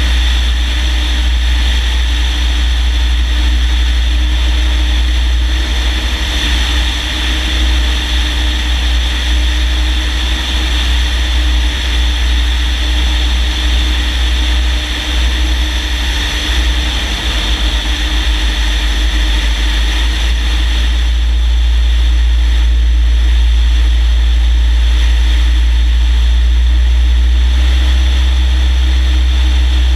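Light aircraft's piston engine and propeller running steadily in flight, heard from a camera mounted under the wing, with heavy wind rumble on the microphone.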